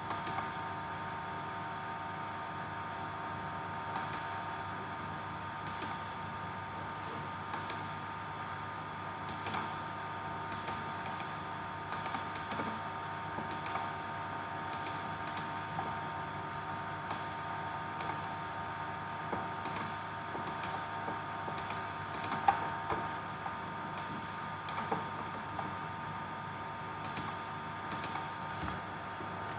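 Computer mouse clicking: about two dozen sharp clicks at irregular intervals, some in quick pairs, over a steady background hum with a few steady tones.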